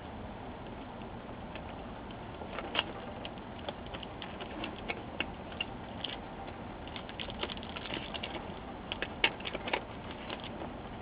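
Fingers handling a laptop's backlight inverter cable and its small plastic connector: scattered light clicks and taps over a steady hiss, busiest in the second half.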